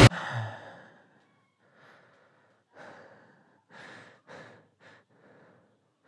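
A man breathing heavily through an open mouth: about six short, uneven, audible breaths, some in quick succession, right after loud music cuts off abruptly.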